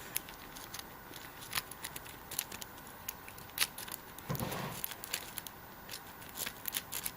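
Lock pick raking the pin tumblers of a new Master Lock padlock held under a tension wrench: faint, irregular metallic clicks and scratches. A short, low handling thump comes about four and a half seconds in.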